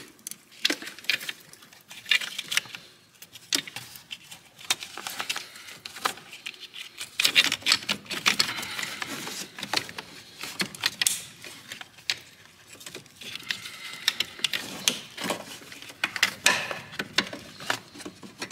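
Plastic brake booster vacuum pipe being slid and worked out from among the engine-bay parts: irregular clicks, taps and rattles, with a stretch of scraping about eight seconds in.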